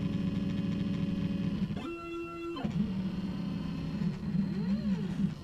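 Stepper motors of a CNC router driving the gantry as it draws with a marker pen, giving off motor tones. A steady buzzing tone during a straight move switches for about a second to a higher steady tone, then comes back. Near the end the pitch rises and falls in arches as the motors speed up and slow down through curves.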